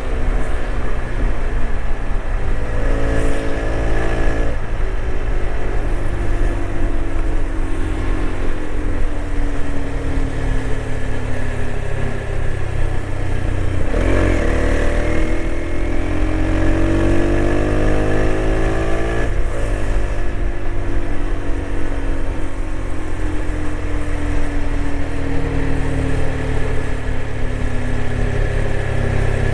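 TVS Apache RTX 300 motorcycle's single-cylinder engine under way on the highway: the pitch eases down, then climbs after gear changes about 14 and 19 seconds in, and falls away again as the rider rolls off near the end.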